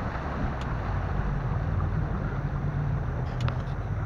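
A 70-horsepower outboard motor runs steadily as the boat moves under way: a low, even engine hum under a rush of wind and water.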